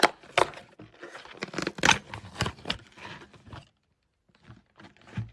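Packaging of a trading-card box being torn open: a run of sharp, irregular rips and crinkles, a short pause, then a few fainter crackles near the end.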